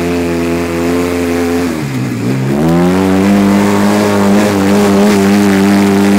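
Off-road vehicle engine revving up and holding at high revs under hard acceleration. The revs drop about two seconds in, then climb again and hold steady.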